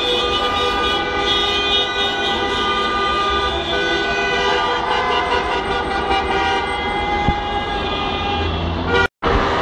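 Many car horns honking at once in long, overlapping blasts over traffic rumble. The sound drops out abruptly for a split second near the end.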